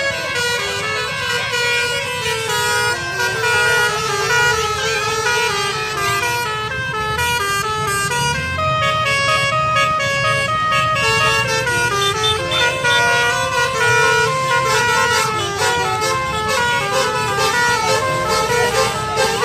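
Basuri 'telolet' multi-tone bus air horn playing a melody: held notes stepping up and down in pitch, one after another.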